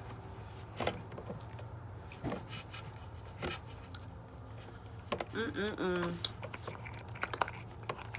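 Mukbang eating sounds: chewing and scattered sharp clicks and taps as food is handled in a plastic container, with a short muffled vocal sound about five seconds in.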